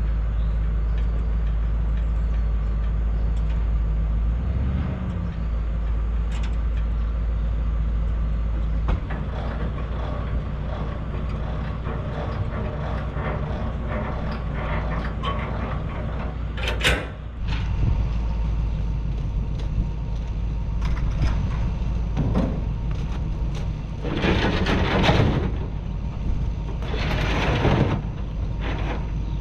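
Gleaner combine running steadily under load while harvesting corn, a constant engine drone with a few louder rushing surges in the second half.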